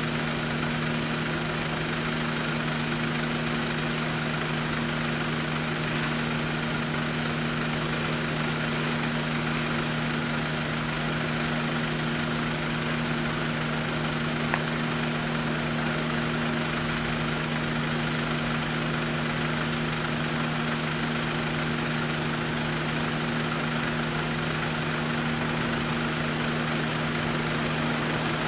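Vehicle engine idling with a steady, unchanging hum. A single sharp click comes about halfway through.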